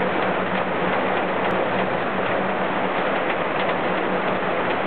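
Steady rain: an even, dense hiss flecked with small drop ticks, with a low steady hum underneath.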